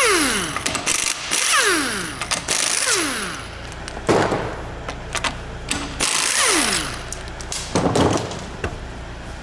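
Impact wrench undoing the wheel bolts of a Volvo XC90's rear wheel: several short hammering bursts, each followed by the motor whining down in pitch as the trigger is released.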